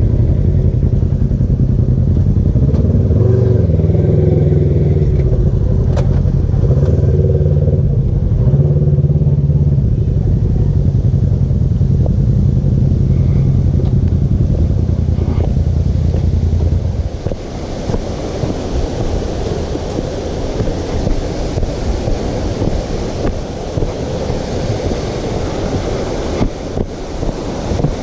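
Polaris RZR side-by-side's engine running at low revs, steady with slight changes in pitch. About 17 seconds in it cuts off abruptly and is replaced by a rough rushing noise with irregular crackles.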